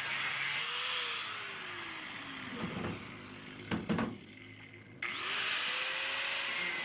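A power tool's motor running with a hissing whine, winding down in pitch after about a second, a few knocks as it stops, then starting again about five seconds in and spinning back up with a rising whine.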